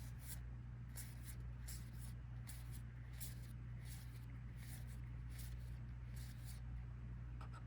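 Collectible trading cards being slid off a stack one after another, a short papery swish about twice a second, over a steady low electrical hum.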